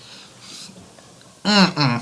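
A person belching twice in quick succession about a second and a half in, each burp short and pitched, falling in pitch, after carbonated water. Faint breathing comes before them.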